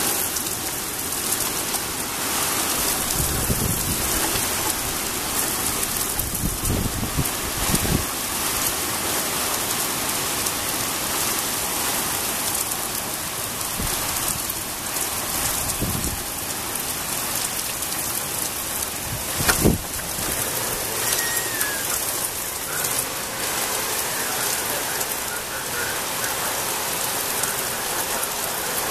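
Heavy rain falling steadily, a dense continuous hiss. Brief low thumps come at several points, and a sharper knock about two-thirds of the way through is the loudest moment.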